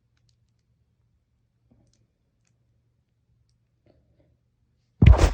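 Near silence, then a single short, loud knock near the end.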